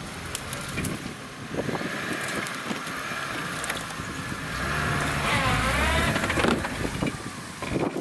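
Engine of a five-door Lada 4x4 Urban (Niva) running as the car crawls over a rough, stony slope, with scattered crunches and clicks from the tyres on stones and wind on the microphone. The engine note wavers up and down a little after the middle, where it is loudest.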